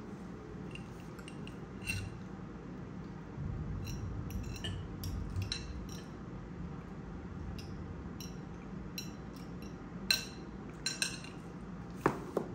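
Metal fork clinking and scraping against ceramic plates and a bowl while salad is served and eaten: scattered light clinks, with the sharpest ones about ten and twelve seconds in.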